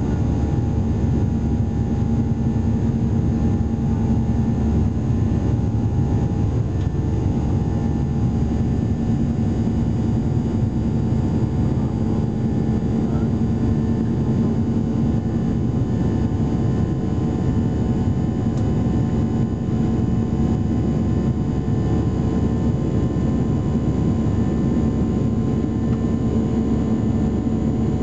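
Cabin noise of a Boeing 737-800 climbing out after take-off, heard from a window seat beside the engine: the CFM56-7B turbofans running steadily, a deep rush of engine and airflow noise with a constant hum and a few held tones on top.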